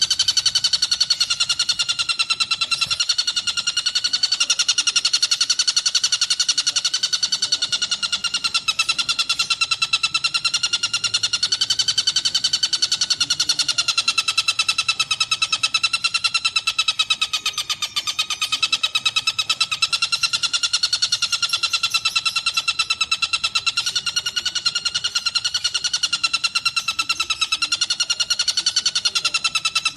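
Recorded songbird played as training song for white-rumped shamas: one continuous, rapid buzzing trill held at a nearly steady pitch, wavering slightly up and down.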